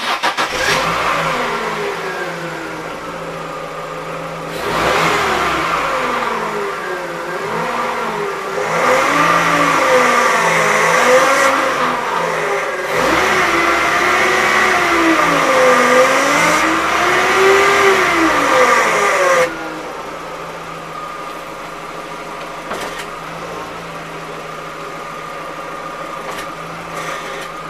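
Humming power steering pump on a Chevrolet Aveo 1.6 with the engine running: a whine that wavers up and down in pitch over the engine, louder from about five seconds in until about twenty seconds, then dropping back. It is the hum of a failing pump.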